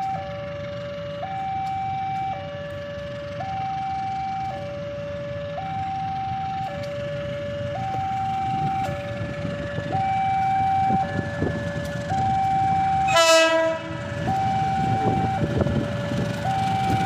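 A two-tone warning alarm alternates steadily between a higher and a lower pitch, each held about a second, while the low rumble of an approaching diesel locomotive grows louder. About thirteen seconds in, the locomotive sounds one short blast of its deep ship-type horn, the loudest sound.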